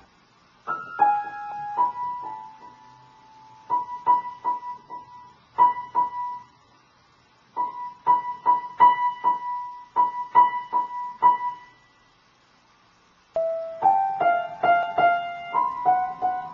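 Piano keys pressed by a cat in short, irregular runs, mostly the same high note struck again and again with pauses between runs; near the end several different notes sound together in a jumble.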